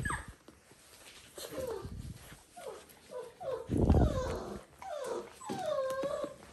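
Dalmatian puppies whining and play-growling while they chew and tussle over a new toy: a string of short calls sliding in pitch, with a louder, deeper growl about four seconds in and a longer arched whine near the end.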